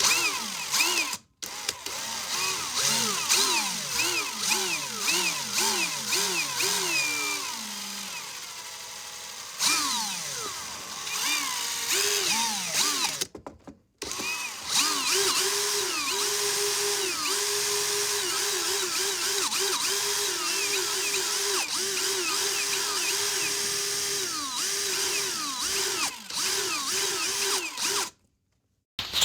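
Cordless drill's motor revved on the trigger to imitate a car engine: quick rising-and-falling whines one after another, then a long stretch held at a steady high pitch with short dips, like an engine held at high revs and shifting. The sound cuts out briefly three times.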